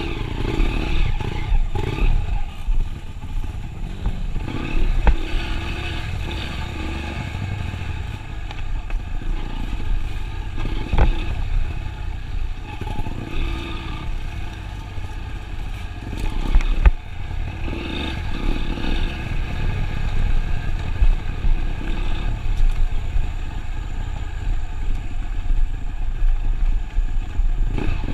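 A motor vehicle's engine running with a steady low rumble, with a few sharp knocks and rattles over it.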